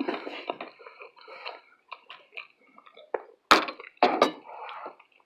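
A person chewing food, with irregular short mouth noises and two sharp clicks, the loudest sounds, about three and a half and four seconds in.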